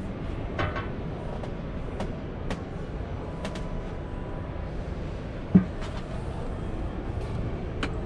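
Steady low rumble of a busy exhibition hall, with scattered light clicks and knocks and one sharp thump about five and a half seconds in.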